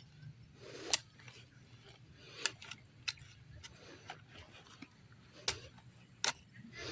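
Irregular sharp clicks and snaps, roughly one a second, over a low steady hum.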